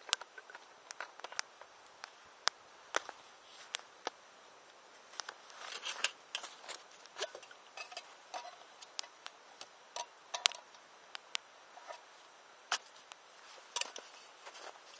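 Wood campfire crackling, with irregular sharp pops and snaps and a busier stretch about halfway through.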